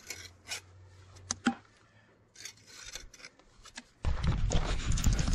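Steel trowel scraping mortar against a cultured stone sill cap, in short strokes with two sharp clicks. About four seconds in, a sudden loud rumbling noise on the microphone takes over.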